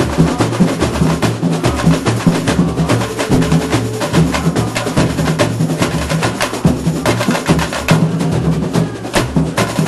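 Samba school bateria playing a fast batucada: deep pitched bass drums under a dense, unbroken layer of snare and high, sharp percussion strokes.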